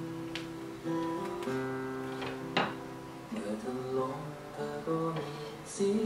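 Acoustic guitar playing an instrumental passage of a song between sung verses, single plucked notes with a few strums.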